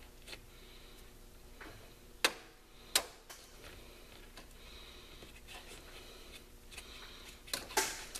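Snap ring pliers clicking against a steel snap ring on a pulley shaft as it is worked off: two sharp metallic clicks a couple of seconds in, then a quick cluster of clicks near the end.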